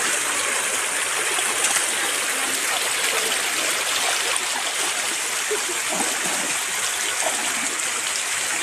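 Shallow stream running over rocks: a steady rush of flowing water, with some sloshing as a person wades through it.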